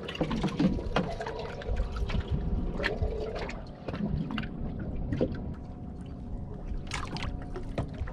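Water lapping and trickling against a small fishing boat's hull, with scattered knocks and clicks of fishing tackle being handled on the deck.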